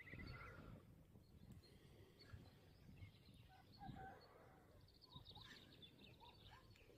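Near silence: faint outdoor ambience with a few faint, short bird chirps, more of them in the second half.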